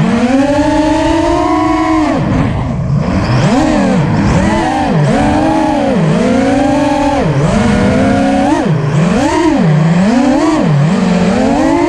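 Brushless motors and propellers of a KISS-equipped Alien 5-inch FPV racing quad in flight: a buzzing whine that swoops up and down in pitch about once a second as the throttle is punched and chopped through turns.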